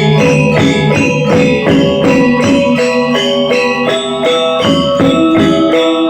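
Balinese gamelan angklung ensemble playing: fast, even strokes of ringing metallic notes in a running melody, with a jingling percussion layer on top.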